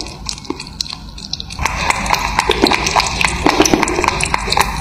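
Kittens lapping milk from a glass dish: rapid, irregular wet clicks that grow louder and denser about a second and a half in.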